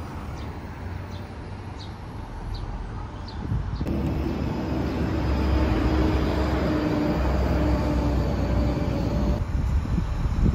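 Street traffic: a steady low rumble of passing vehicles, with a faint engine hum. It grows louder about four seconds in.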